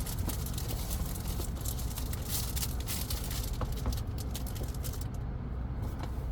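Cardboard packaging and its contents being handled and opened: a run of short crinkles, rustles and scrapes, busiest in the first half, over a steady low rumble.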